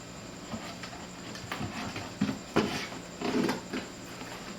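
Handling noises: scattered light knocks and clicks as parts are fitted into a homemade speaker box by hand.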